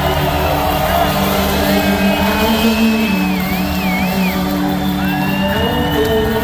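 Blues-rock band playing live, heard from the audience: a high electric-guitar line glides and wavers in pitch over sustained low bass and keyboard notes.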